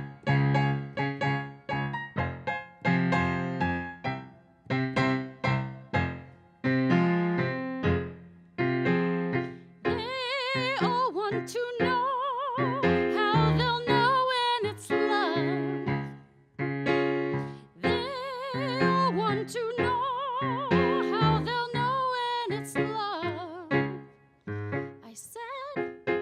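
Piano playing a tango in a rhythmic pattern of chords, with a melody of long notes with vibrato over it from about ten seconds in until near the end.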